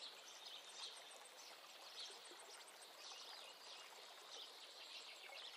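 Faint nature ambience: many small bird chirps over a steady rush of running water.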